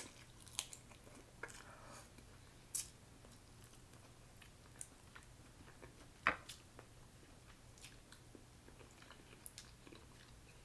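Quiet chewing of snow crab meat, with scattered soft clicks and snaps of crab-leg shell being picked apart by hand; the sharpest click comes about six seconds in.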